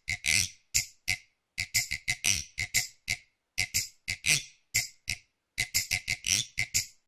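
Dry rattling percussion strokes in short, uneven bursts, shaker- or rattle-like, with a little low thump under some of them, opening a children's song ahead of the drum beat.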